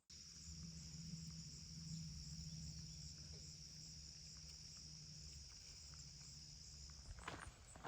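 Faint, steady high-pitched trill of field insects, with a low steady hum underneath. Footsteps on the road start again near the end.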